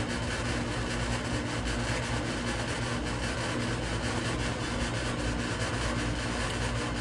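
Steady mechanical hum over an even hiss, with a few low steady tones and no distinct knocks or clicks: a machine running continuously in the background.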